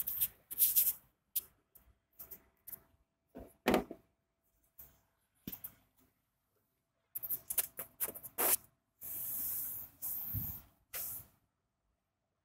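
Handling noises at a delivery robot's open cargo bin: an irregular run of rustles and clicks, with a longer hissing rustle about nine seconds in, over a faint steady hum.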